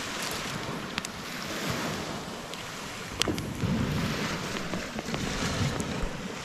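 Waves washing on the shore with wind on the microphone, a steady rushing noise, with a few sharp clicks about a second in, around three seconds in and near the end.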